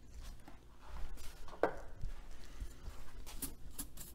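Scattered light clicks and knocks, with one sharper click about one and a half seconds in: hands working the controls of a vintage console stereo receiver as it is switched on.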